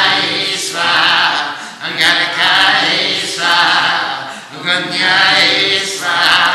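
Sanskrit mantras chanted aloud by a man's voice, phrase after phrase of about a second each with short breaks between.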